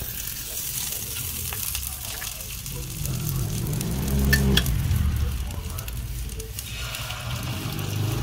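Butter sizzling and crackling in a hot stainless steel frying pan as a slice of bread fries in it, with a couple of sharp clicks about four and a half seconds in.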